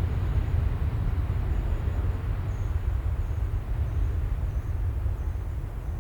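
Low rumble of a jet airliner's engines, slowly fading as the aircraft climbs away from the runway.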